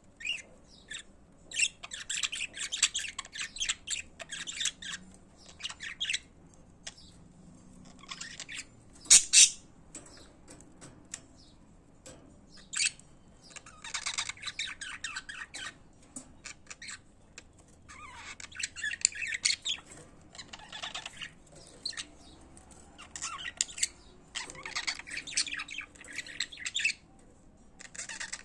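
Budgerigars chattering and warbling in bursts of one to three seconds with short pauses between. One brief, much louder sharp call stands out about nine seconds in.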